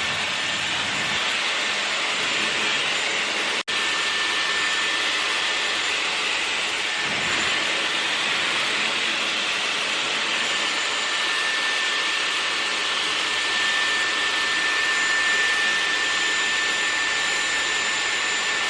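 Dyson Airwrap styler with its large curling barrel running, a steady rush of air with a thin high motor whine. The sound cuts out for an instant about four seconds in, then runs on.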